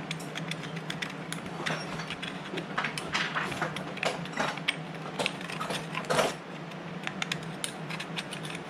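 Irregular scraping, rubbing and small clicks from a removed lawnmower carburetor being cleaned of debris and buildup by hand, over a steady low hum in the background.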